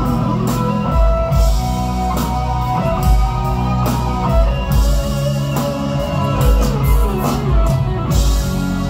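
Live rock band playing, led by an electric guitar line of held and bending notes over steady drums.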